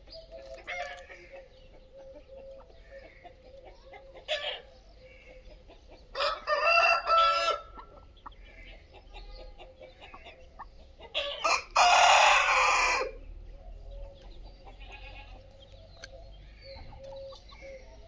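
Desi chickens: a rooster crows loudly twice, about six and eleven seconds in, with softer clucking from the flock in between.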